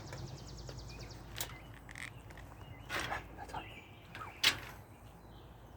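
A few sharp knocks of a knife against a cutting board while slicing brisket, the loudest about four and a half seconds in, over a low steady hum.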